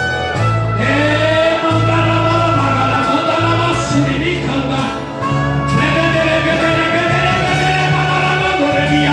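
Live gospel worship music: voices singing over a band, with a bass line moving every second or so under held keyboard chords.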